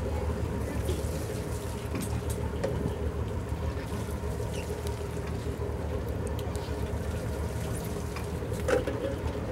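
Steady low hum of a fishing boat's engine, with water sloshing against the hull and a few faint clicks; a short, sharp knock stands out near the end.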